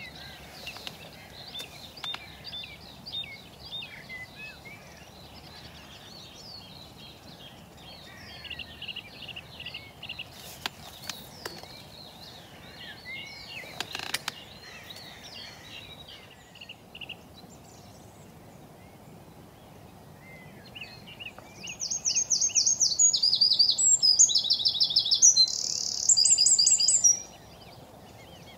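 Riverside birdsong: small birds chirping and twittering, then about twenty seconds in a nearby songbird sings one loud, high phrase of fast repeated trilled notes lasting about five seconds.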